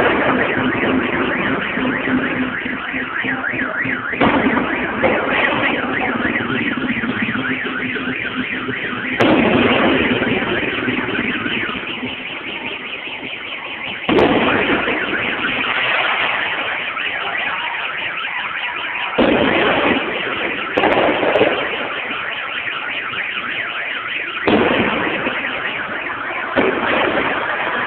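Firecrackers and fireworks going off in a dense, unbroken crackle, with fresh loud surges of bangs every few seconds.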